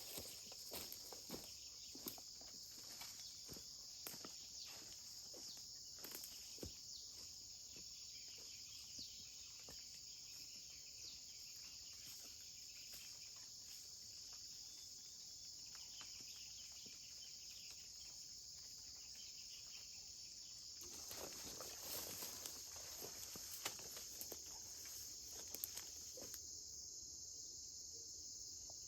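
Insects, crickets or similar, keeping up a steady high-pitched chirring, with scattered light clicks and rustling, the rustling louder for a few seconds about three quarters of the way through.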